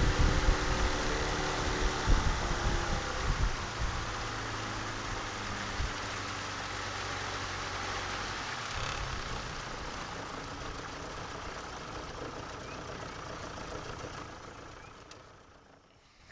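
Small boat outboard motor running as an aluminium jon boat moves along, mixed with water and wind rush. Its pitched note slides down in the first few seconds. The whole sound dies away over the last couple of seconds.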